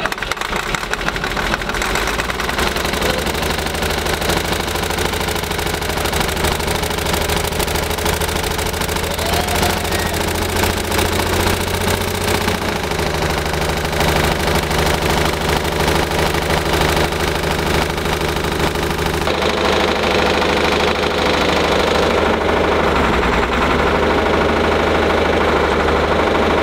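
An old excavator's diesel engine running loud and steady after being revived from years of sitting. It is smoking heavily, which is taken as a sign that mechanical problems remain. The engine note steps up about halfway through and shifts again a few seconds later.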